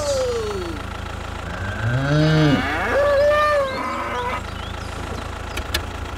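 Cattle mooing: a low moo that rises and falls about two seconds in, then a higher call right after it, over a steady low engine hum.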